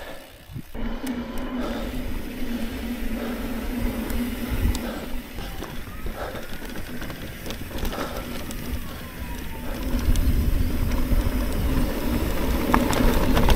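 Electric mountain bike being ridden over a trail: tyre rolling noise with a steady hum and scattered rattles and knocks from the bike. Low wind rumble on the microphone grows stronger about ten seconds in.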